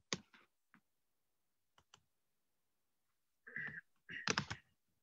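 Scattered clicks and taps, like a computer keyboard or mouse, heard through a video call's audio with dead silence between them; two louder, longer rustling bursts come about three and a half and four seconds in.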